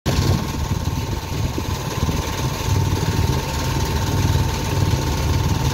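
Sailboat's engine running steadily while motoring, a low even drone with a steady whine riding above it.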